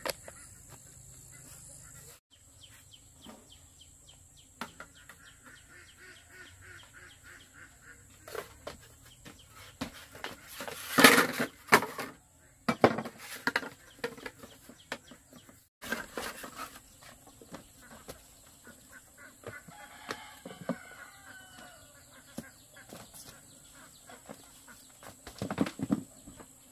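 Chickens clucking and squawking amid scattered knocks and rustles, with the loudest flurry, likely wings flapping, about eleven seconds in.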